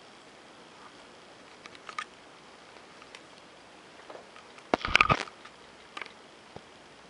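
Camera handling noise: a few faint taps and rustles, then a louder cluster of knocks and rubbing about five seconds in as the camera is swung around, and a single click near the end.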